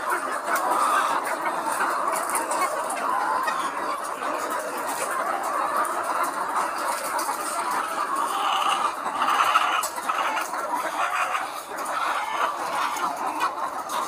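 A large flock of caged laying hens clucking, many calls overlapping into a continuous chatter.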